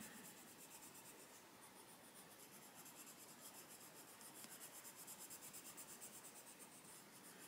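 Faint scratching of an Arteza Expert coloured pencil shading on paper in quick, even back-and-forth strokes.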